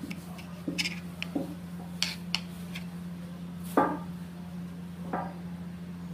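A knife cutting and scraping the crust off a loaf of white bread, the blade tapping and knocking on the tray in scattered strokes, the loudest knock about four seconds in. A steady low hum runs underneath.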